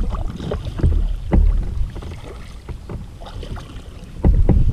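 Kayak paddling in calm sea water: the paddle dipping and splashing in irregular strokes, with water dripping from the blades and low rumbling surges now and then.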